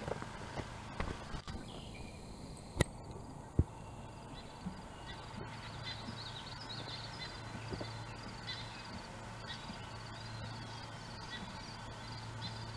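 Woodland ambience with small birds chirping and a steady low hum, broken by two sharp knocks about three seconds in, a little under a second apart.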